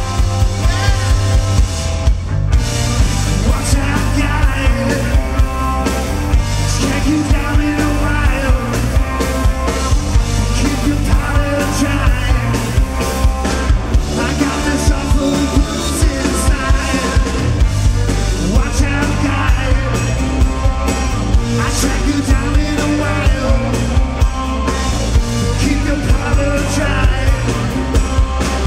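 Live rock band playing: electric guitar, bass guitar and a drum kit, amplified on stage, with a steady driving beat.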